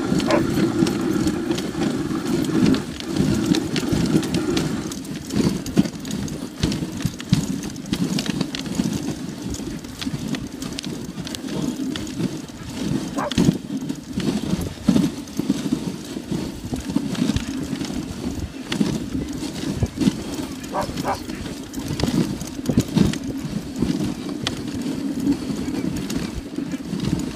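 A husky-drawn dog sled running over snow: a continuous scraping rush from the runners, with many small knocks and rattles from the sled and the team.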